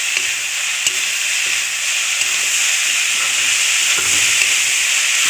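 Dhekia fern greens and chickpeas sizzling in hot oil in a wok while a spatula stirs and tosses them: a steady frying hiss with a few light spatula scrapes, getting slightly louder toward the end.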